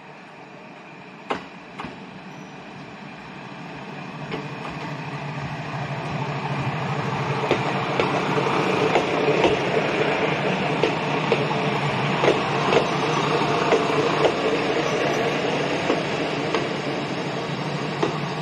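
Shimabara Railway KiHa 2550A diesel railcar pulling slowly into a station, its engine running with a low hum and growing louder as it nears. Its wheels click over the rail joints at irregular intervals as it passes close. Two sharp clicks come about a second in.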